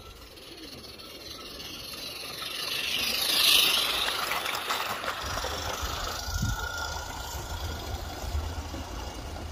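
A small 16 mm-scale garden-railway locomotive and its wagons running on the track. The train's hiss and rattle build as the engine comes up close and peak loudly about three and a half seconds in as it passes, then the wagons run on more evenly.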